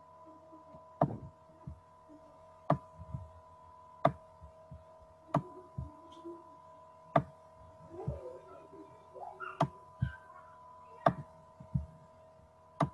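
Sharp single clicks every one to two seconds or so, over a steady electrical hum, with soft low thuds between them.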